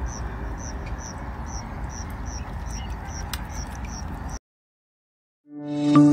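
A high chirp repeated evenly, almost three times a second, over a low outdoor rumble, from a small animal in the field. The sound cuts off about four seconds in, and end-card music with plucked notes starts near the end.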